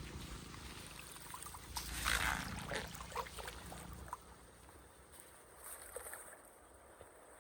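Floodwater sloshing and splashing around a clogged street drain as debris is pulled from it, loudest about two seconds in; a low rumble underneath stops about four seconds in, leaving a quieter trickle.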